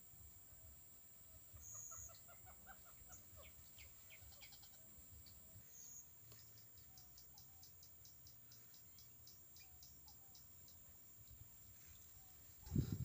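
Faint bird calls from the marsh: a quick run of short notes about two seconds in, then a long even series of high ticking notes, over a steady high-pitched tone. A loud thump near the end.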